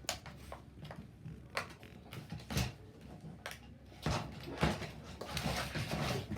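Cardboard-and-plastic toy car blister card being pried and pulled at: a few sharp clicks and knocks, then crackling and tearing of the packaging from about four seconds in.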